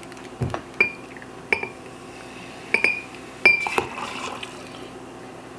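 Glass clinking in about six sharp taps that each ring briefly, with liquid pouring, as ginger ale is added to a glass of rum punch.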